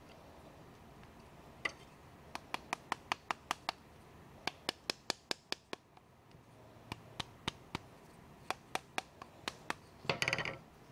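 Metal parts of an 1851 Navy percussion revolver being handled, making runs of sharp metallic clicks at about five a second. Near the end comes a brief, louder metallic rattle.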